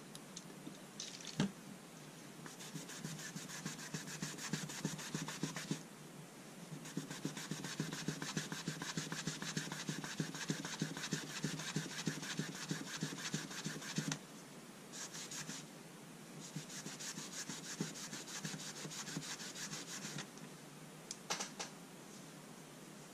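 A damp cloth rubbed back and forth along a boxwood-and-brass folding rule, cleaning it in several long stretches of quick strokes. There is a sharp knock about a second in and a couple of light clicks near the end.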